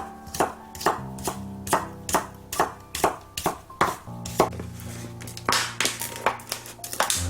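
Knife chopping on a cutting board, about two to three even strokes a second and quicker near the end, over background music.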